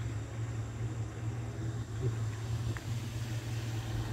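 A steady low mechanical hum under a constant hiss, with a couple of faint clicks a little past the middle.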